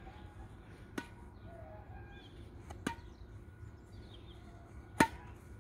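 Badminton racket striking a shuttlecock three times, about two seconds apart, as it is kept up in the air; the last hit is the loudest. Birds chirp faintly between the hits.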